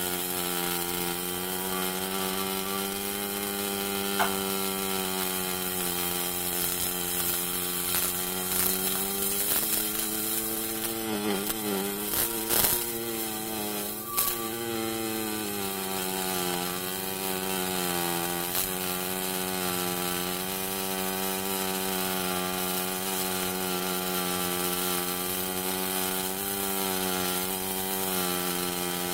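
Pulse MIG welding arc on aluminum pipe from an HTP Pro Pulse 300: a steady, pitched buzz with hiss over it. About halfway through, the pitch wavers briefly and there are a few crackles and pops.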